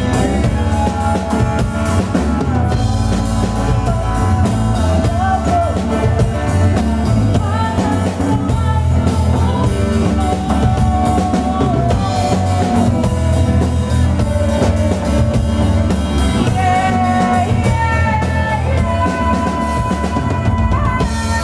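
Live band with women singing over drum kit, acoustic guitar and a large hand-played frame drum.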